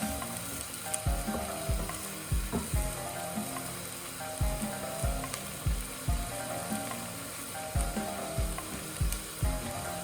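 Minced lamb with onion, garlic and red pepper sizzling in a frying pan while it is stirred, the onions browning. Background music with a steady low beat plays under it.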